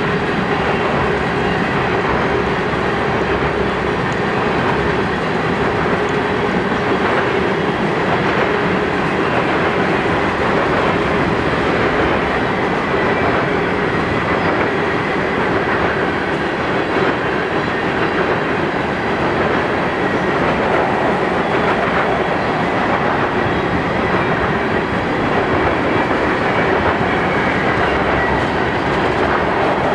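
Freight train of black tank cars rolling past, a steady rumble of steel wheels on the rails.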